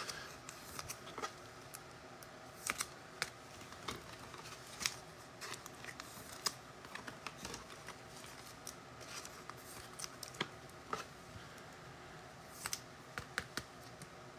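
Faint, scattered soft clicks and snaps of trading cards being handled and flicked through one by one, about one or two a second.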